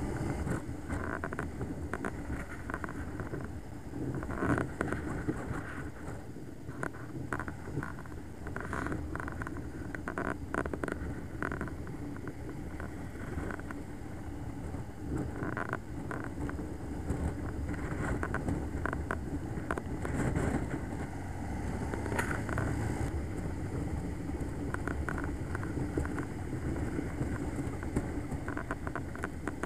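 Honda Crosstourer VFR1200X motorcycle cruising at steady road speed, heard from the bike itself: a constant low engine and road rumble overlaid with crackling wind buffeting on the microphone.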